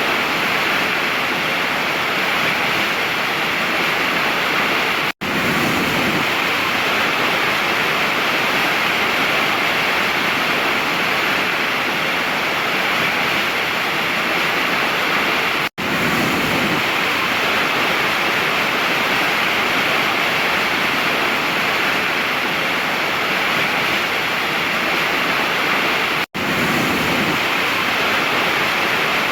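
Waterfall, a steady, loud rush of falling water that cuts out for an instant three times, about ten seconds apart.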